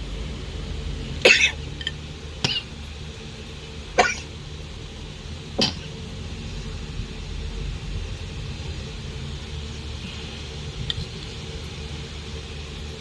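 Cutlery clinking sharply against a ceramic plate and food containers as rice is served, four short strikes, the first the loudest, over a steady low room hum.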